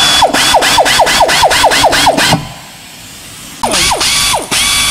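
Air ratchet hissing and rattling at about four to five clicks a second as it winds in the rear brake caliper bolts. It runs in two bursts, stopping a little past two seconds in and starting again about a second later.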